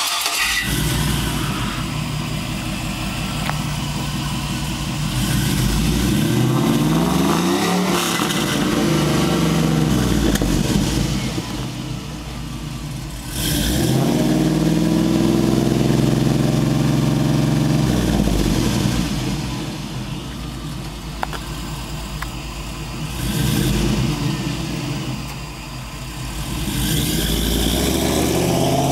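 1999 GMC Sierra's 5.3-litre V8 with long-tube headers, no catalytic converters and a Flowmaster Super 44 muffler, firing up at the start and then idling between several revs, the pitch climbing and falling with each one.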